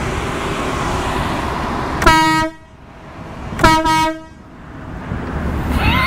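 An air horn mounted on an Afikim mobility scooter blasting twice, each blast about half a second long with about a second and a half between their starts, over a steady rushing background noise.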